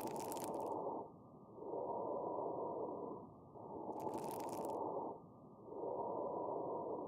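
Lung sounds with fine crackles (rales), an abnormal breath sound. The breath noise swells and fades about every two seconds. A crisper, higher-pitched crackling layer comes in twice, at the start and just past halfway.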